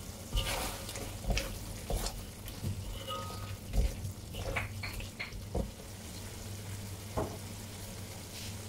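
Flat metal spatula stirring thick drumstick curry in a steel kadai: irregular scrapes and knocks against the pan over the low sizzle of the simmering gravy, with a steady low hum underneath.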